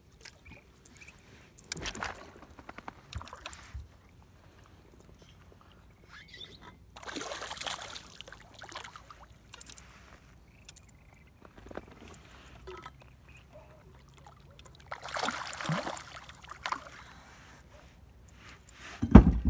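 A small rainbow trout splashing at the water's surface beside a boat as it is reeled in, in several short spells of splashing. Near the end there is one loud low thump.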